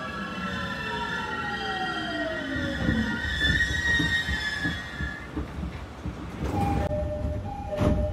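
Mitsubishi GTO-VVVF inverter of a JR 209 series 1000-subseries electric train, heard from inside the car, whining in several tones that fall in pitch as the train slows, then dying away about five seconds in. Near the end there are two short bursts of hiss with brief tones.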